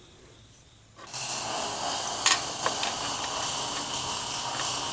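A steady hiss that starts about a second in, with a single sharp click partway through.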